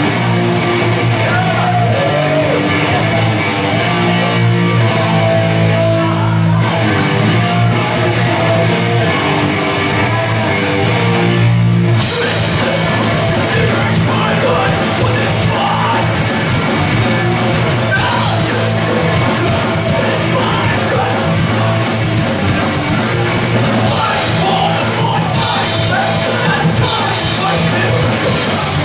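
Punk band playing live: electric guitar and bass notes ring for the first twelve seconds or so, then drums and cymbals crash in and the full band plays on with yelled vocals.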